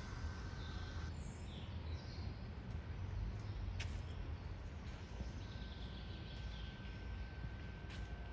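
Outdoor ambience: a steady low rumble with a few faint, short bird chirps and a couple of sharp clicks.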